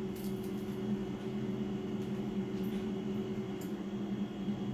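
Ganiza air fryer running with a steady low hum from its fan while it bakes. A few faint crunches of fried chicken being bitten and chewed come on top of it.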